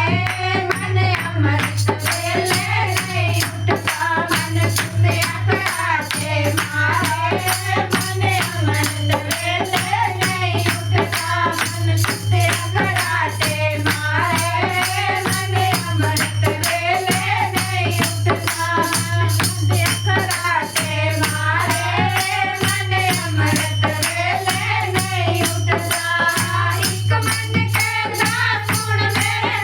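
Hindi devotional bhajan music: a wavering melody over a steady low drone, driven by a fast, even beat of rattling hand percussion.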